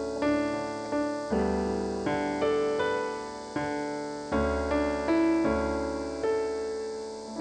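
Slow piano introduction played on a stage keyboard: chords struck one after another and left to ring and fade, with a deep bass note under some of them.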